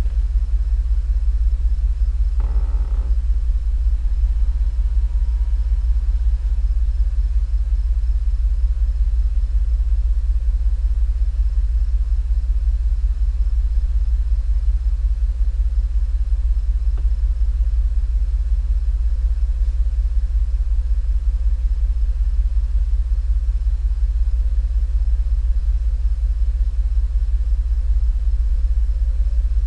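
Cadillac STS engine running at a steady idle, a deep even rumble. The engine has a misfire, which the owner traced to bad piston rings.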